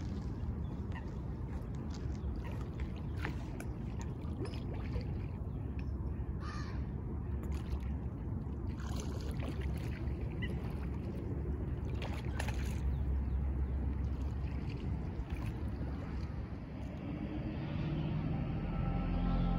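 Eurasian coots calling: short, sharp calls at scattered moments over a low steady rumble. Music fades in near the end.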